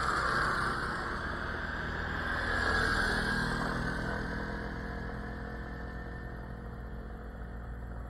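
Two motorcycles passing close by one after the other, the first just as it begins and the second about three seconds in, each a swell of engine and tyre noise with the engine pitch dropping as it goes by, then fading away.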